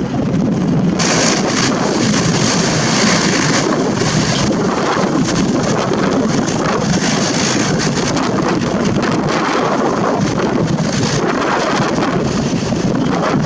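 Jet airliner engine noise, loud and steady, mixed with heavy wind buffeting the microphone in gusts.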